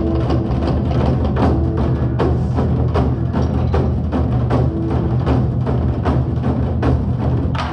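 Korean drum ensemble playing a fast, driving rhythm of dense, closely spaced drum strikes over a deep, steady low backing.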